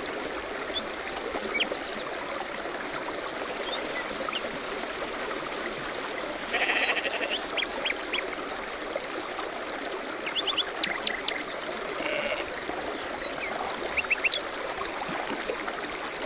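A recorded nature-sound mix of a running stream, with scattered high chirps and a few short, rapid trills from small animals laid over it.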